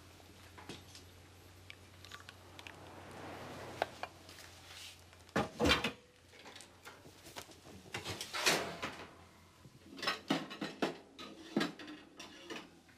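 Kitchen clatter: a pan, its lid and crockery being handled and set down on the hob and worktop, with a run of sharp knocks and clinks, the loudest about five and a half and eight and a half seconds in.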